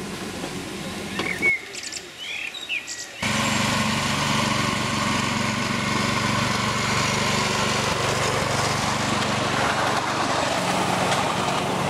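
A small engine of a ride-on miniature locomotive running steadily from about three seconds in. Before that, birds chirp over a low hum.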